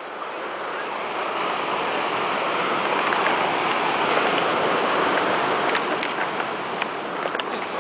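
Ocean surf washing on a rocky shore: a steady rush of water that swells towards the middle and eases near the end, with a few faint clicks.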